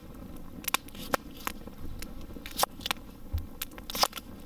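Irregular sharp clicks and snaps, with a short dull low thump a little past the middle.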